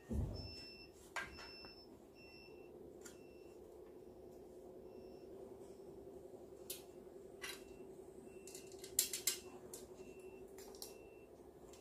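Hard RC trailer-kit frame parts being handled and fitted together: a thump as a piece is set down at the start, then scattered clicks and knocks, the loudest a pair about nine seconds in. A steady low hum and short high beeps that come and go run underneath.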